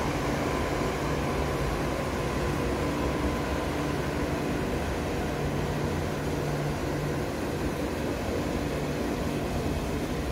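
KTX-I high-speed trainset moving slowly past a station platform: a steady low hum over an even rumble of running gear.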